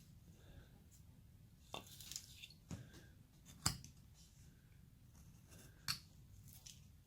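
Carving knife slicing into basswood: a few short, crisp cuts. The loudest is about three and a half seconds in, and another comes near six seconds.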